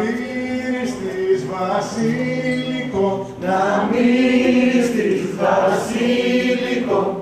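A group of voices singing a folk dance song unaccompanied, in long held phrases with brief breaks between them.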